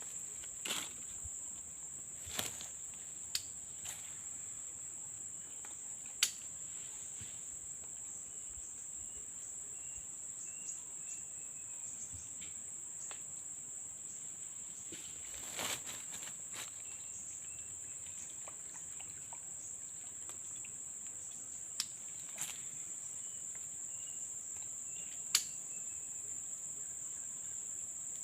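Steady high-pitched chorus of insects, a continuous drone, with a few sharp clicks scattered through it.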